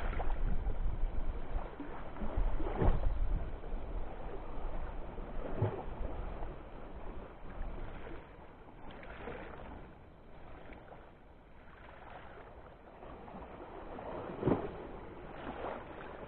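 Wind rumbling on the microphone over sea water washing among shoreline rocks, loudest in the first few seconds and then settling lower, with a few brief knocks, the sharpest near the end.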